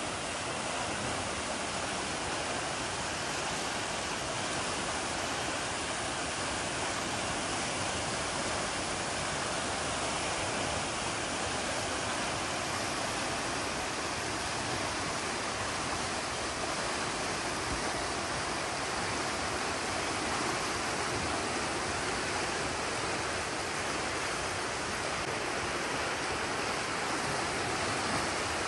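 Shallow, fast river running over rocks: a steady, even rush of flowing water.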